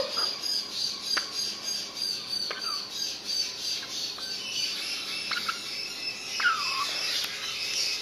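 Pet parrots chirping: a steady high twittering, a few faint clicks, and one short falling call about six and a half seconds in.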